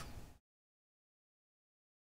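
Near silence: a faint trailing end of a voice cuts off about half a second in, leaving dead digital silence.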